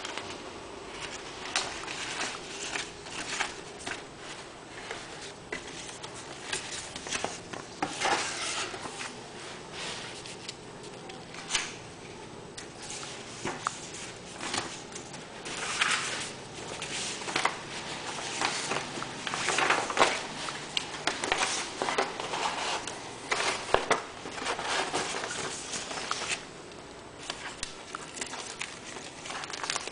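Paper and plastic being handled: the pages of a model kit's instruction booklet being turned, then a decal sheet in a clear plastic bag crinkling. Irregular rustles with a few sharper clicks.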